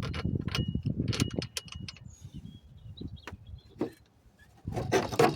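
Handling noises: irregular knocks and clicks over a rustling rumble, falling quiet for about a second and a half after the middle, then a short loud burst of rustling near the end.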